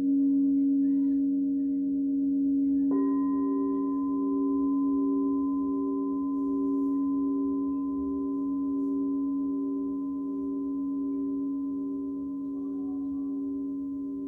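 Quartz crystal singing bowls ringing with a steady, low hum. About three seconds in, another bowl is struck, adding a higher ringing tone and a slow, wobbling beat. The tones fade slowly.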